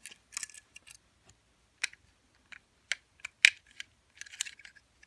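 Irregular small metallic clicks and taps from handling an opened Abus lever padlock and its pick and tension tools, with the sharpest click about three and a half seconds in.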